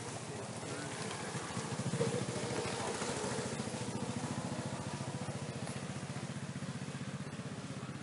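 An engine running steadily with an even, rapid pulse, with a brief louder sound about two seconds in.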